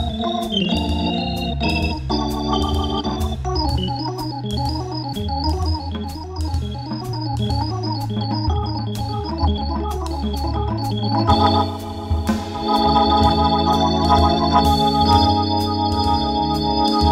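Hammond organ playing jazz, with a moving bass line in the low register under chords and melody notes, accompanied by a drum kit with frequent cymbal strokes. About eleven seconds in, the organ shifts to louder sustained chords.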